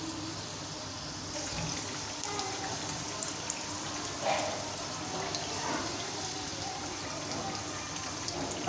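Samosas deep-frying in hot oil on medium heat, a steady sizzle with fine crackles. A slotted metal skimmer moves through the oil and against the pan, making a louder scrape about four seconds in and again near six seconds.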